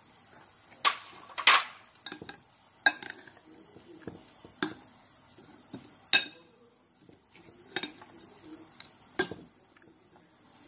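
Steel spoon clinking and scraping against a glass bowl while mixing a soft mashed potato and paneer filling, with sharp clinks at irregular intervals about every second or so.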